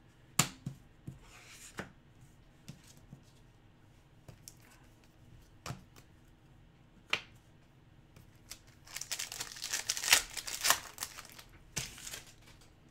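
A few light clicks of trading cards being handled, then a second or two of tearing and crinkling about nine seconds in, as a trading-card pack wrapper is torn open.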